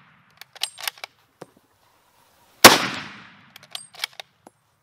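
A .404 Jeffery bolt-action rifle fires once, a little past halfway through, and the report fades away slowly. Before and after the shot come short metallic clicks of the bolt being worked to chamber the next round.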